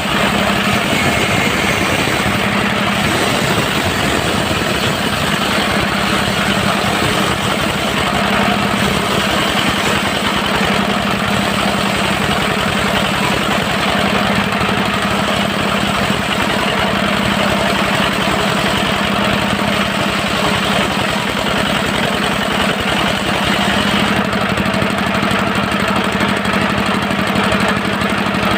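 Diesel engine driving a portable circular sawmill, running steadily without a break.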